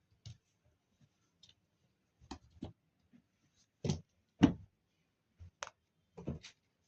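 A series of light, irregular clicks and knocks, about nine in all, the loudest about four and a half seconds in, with quiet between them.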